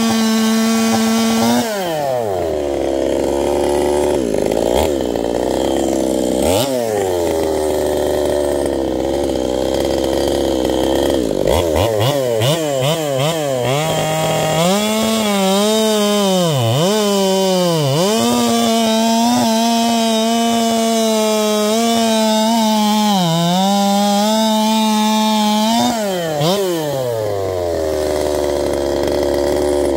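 Ported two-stroke chainsaw running at full throttle, dropping to idle about two seconds in and blipped twice. From about twelve seconds it is held wide open while cutting through a log, the revs dipping again and again under load, then it falls back to idle near the end.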